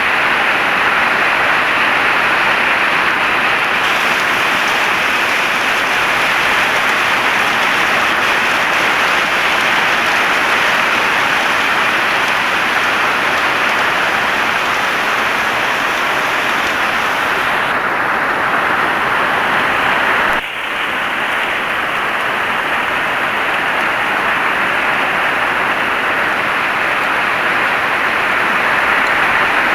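Heavy rain falling steadily, a dense even hiss, with a brief dip in loudness about two-thirds of the way through.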